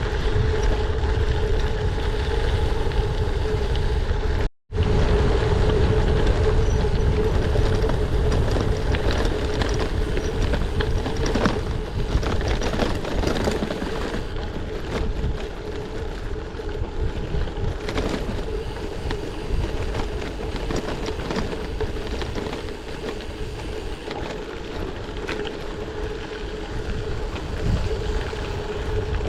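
Wind rushing over a bike-mounted GoPro's microphone, with tyres rolling under a gravel bike at speed and a steady hum. The sound cuts out for a moment about four and a half seconds in.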